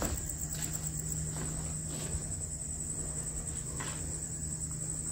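Crickets trilling steadily in a high, even tone, over a low steady hum.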